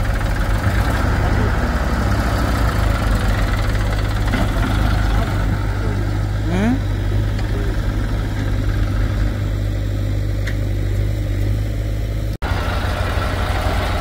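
Diesel engines of a backhoe loader and tractors running steadily at low revs, with a short rising whine about six and a half seconds in. The sound drops out for an instant near the end.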